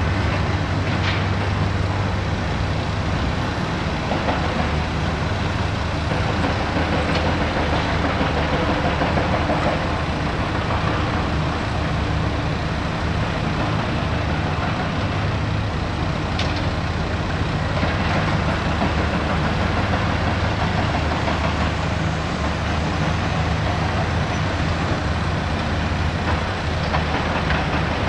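Large hydraulic excavator's diesel engine running steadily under work, with a few faint, short high-pitched sounds now and then.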